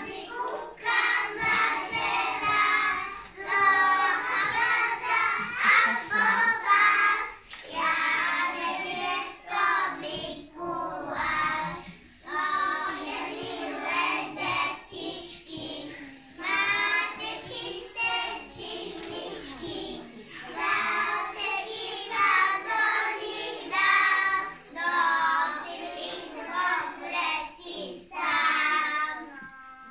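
A small group of preschool children singing a Slovak song together, phrase after phrase with short breaks between lines.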